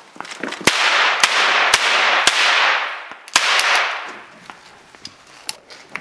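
A cheap eight-shot cap-gun revolver, styled on a Colt Detective Special, firing paper caps: four sharp cracks about half a second apart, then a fifth about a second later. A loud hissing wash runs under the shots and fades away near the middle.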